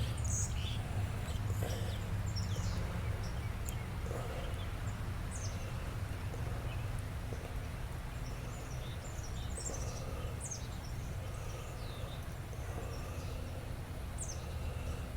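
Scattered short bird chirps over a low, steady rumble of outdoor background noise.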